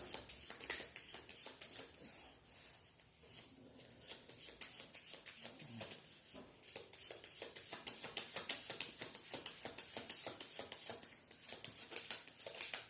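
A deck of oracle cards being shuffled by hand: a long run of quick, irregular papery clicks and flutters.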